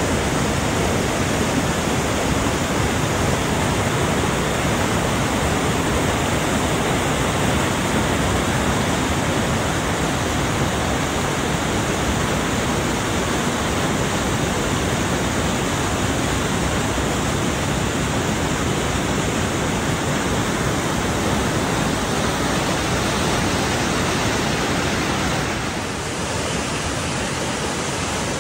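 Whitewater rapids of a glacier-fed mountain river rushing over and between marble rocks: a steady, loud wash of churning water, slightly quieter for the last couple of seconds.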